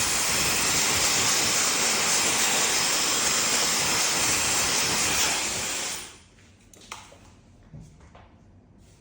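Hair dryer blowing a steady rush of air, switched off and winding down about six seconds in, followed by a few faint clicks and rustles.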